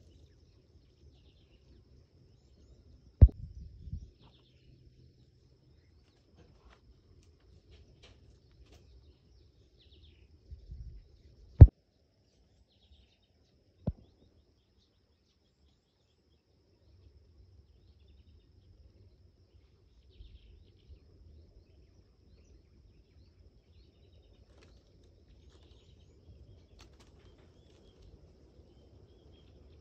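Outdoor ambience with faint bird chirps scattered through and a low background rumble, broken by three sharp knocks, the loudest just before the middle.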